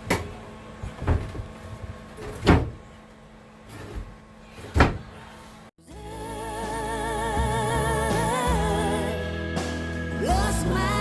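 Four sharp knocks, a second or two apart, over a low steady hum. After a brief cut to silence about six seconds in, music with a singing voice begins.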